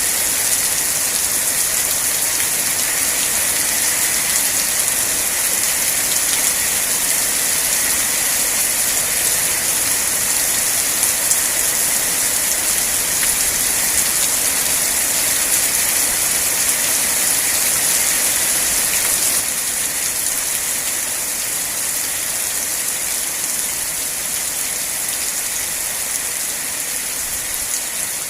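Steady rain falling, an even, bright hiss with no breaks; it becomes slightly quieter about two-thirds of the way through.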